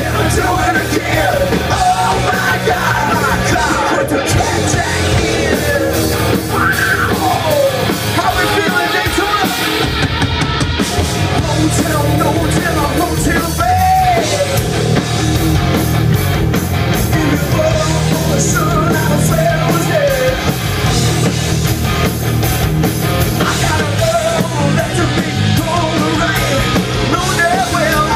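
Live rock band playing loud: electric guitars with a singer's voice sliding up and down over them.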